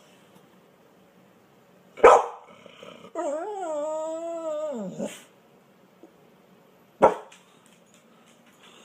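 A grey pit bull-type dog gives one sharp bark, then a drawn-out, wavering whine-howl for about two seconds that drops in pitch at the end, then another single sharp bark.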